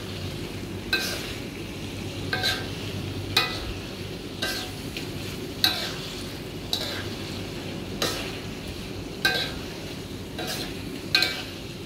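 Metal spatula scraping and clinking against a wok about once a second as chicken and tofu are stirred through thick chilli sambal, over a steady soft sizzle.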